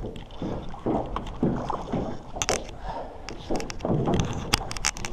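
Water splashing and sloshing as a hooked bass thrashes at the surface beside a small boat, with sharp splashes from about halfway through and a cluster near the end.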